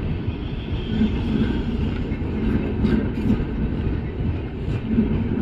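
Indian Railways passenger coaches rolling past close by: a steady low rumble of steel wheels on the rails.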